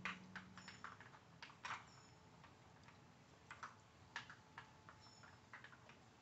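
Light plastic clicks and knocks from an Outward Hound Dog Brick puzzle toy as a puppy noses and paws its flip tabs and sliding pieces hunting for treats. About a dozen irregular taps, some in quick pairs.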